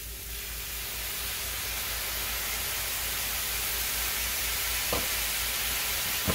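Mushrooms, onions and corn sizzling in a hot frying pan as white wine is poured in, the sizzle growing louder over the first second or so and then holding steady. A light click about five seconds in and another near the end.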